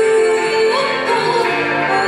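Live song played on saxophone and strummed acoustic guitar, with a woman's singing voice. A long held note changes to a moving melody a little under a second in.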